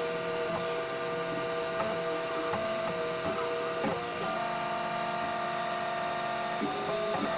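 3D printer's stepper motors whining as the print head moves, holding steady pitches that change every half second or so with a small click at each change of direction, and one longer steady move of about two seconds past the middle.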